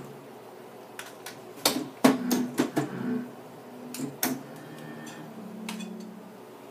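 A synthesizer keyboard being pressed and slapped at random by a child: irregular clacks of keys and panel buttons, with a few short low synth notes sounding among them.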